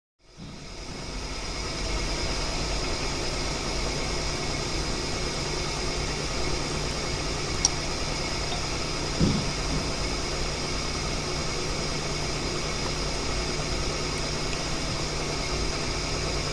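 Drilling machine spinning up and running steadily, with a left-hand drill bit cutting into a stubborn broken bolt: a steady hum with a high whine, one sharp click and one short thump midway. The left-hand bit is meant to grab the broken bolt and back it out.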